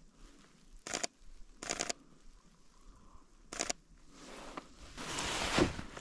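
Footsteps crunching in deep, frozen snow: three separate steps in the first four seconds, then a rustle that swells louder near the end.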